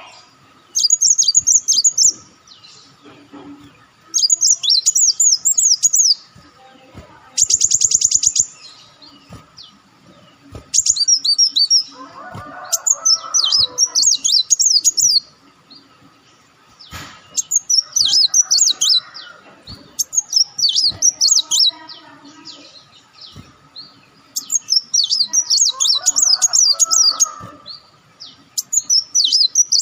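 A sunbird singing in repeated bursts of rapid, high-pitched twittering, each phrase about two seconds long with short pauses between. One phrase is a fast buzzy trill.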